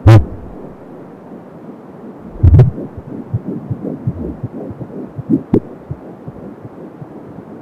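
Fetal heartbeat through a handheld fetal Doppler's speaker: a fast pulsing whoosh, about 170 beats a minute, over steady hiss. Loud knocks break in at the start, about two and a half seconds in and about five and a half seconds in.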